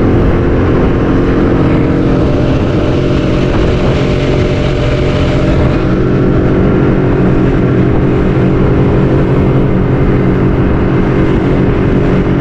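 A fibreglass fishing boat's motor running steadily under way at constant speed.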